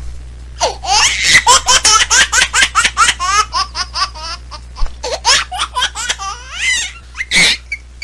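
Baby laughing hard: a long run of quick, high-pitched laugh bursts, with a louder burst near the end.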